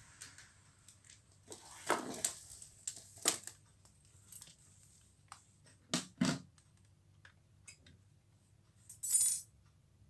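Metal tools being handled at a refrigerator's copper pipework: scattered clicks and clatters as locking pliers and a gas torch are moved into place, with a double knock about six seconds in and a short hissy burst near the end.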